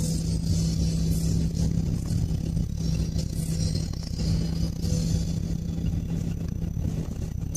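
A car's running noise heard from inside the cabin while driving: a steady engine hum over low road rumble, with tyres hissing on wet asphalt. The hum drops away near the end.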